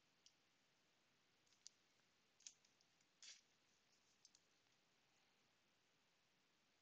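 Near silence with about five faint, short clicks in the first few seconds, from a glossy trading card being handled between the fingers.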